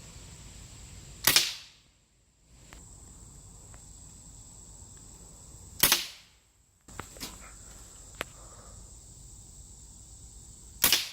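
Three shots from a scoped pellet air rifle, each a sharp crack, about four and a half seconds apart, with a few faint clicks between the second and third.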